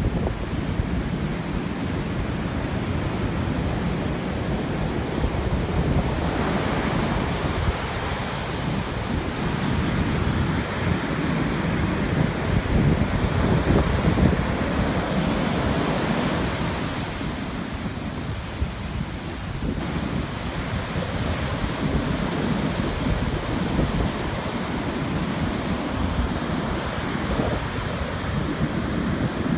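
Atlantic surf breaking and washing up the beach, swelling louder a couple of times, with strong wind buffeting the microphone.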